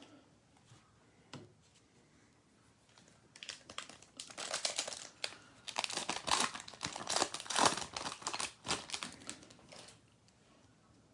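Plastic wrapper of a trading card pack being torn open and crinkled by hand, starting about three seconds in as a run of quick, irregular crackles that goes on for several seconds.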